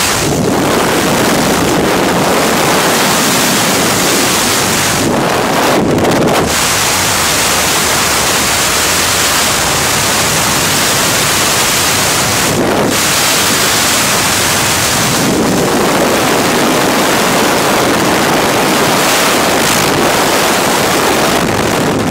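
Loud, steady rush of freefall wind over a camera microphone during a skydive, with brief dips in the hiss a few times.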